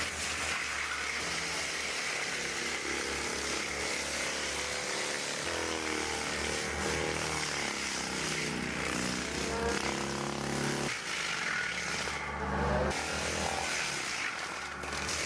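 A Link-Belt 3740 log loader's engine working under load, its pitch rising and falling in the middle as the hydraulics are worked.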